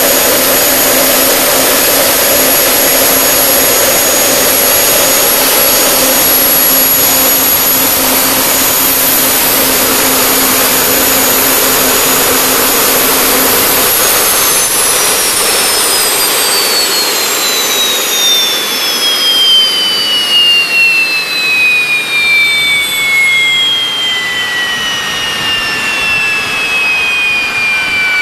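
Turbomeca Astazou 3N2 gas turbine running steadily at speed with a high whine. About halfway through it is shut down, and the whine falls steadily in pitch as the engine spools down.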